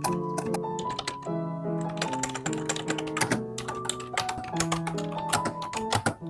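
Typing on a YUNZII ACTTO B309 retro keyboard: a run of key clicks, scattered at first, then quick and dense after about two seconds, over soft piano music.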